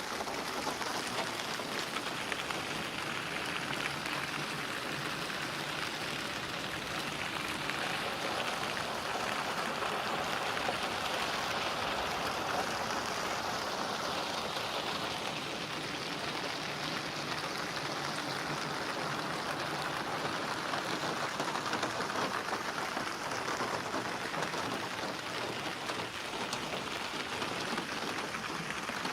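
Steady rain falling and pattering on surfaces, with fine drops ticking throughout.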